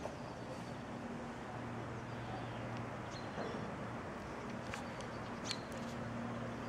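A steady low hum under outdoor background noise, with a few faint high chirps and a few sharp clicks in the second half.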